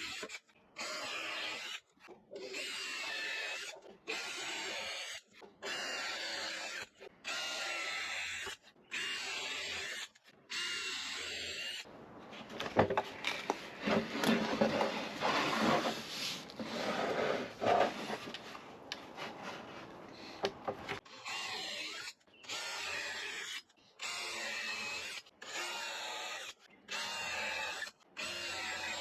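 Power drill boring countersink holes in a cherry wood door frame, run in short stop-start bursts of about a second each, with a steady whine in every burst. Partway through, the drilling gives way for several seconds to irregular knocks and rattles.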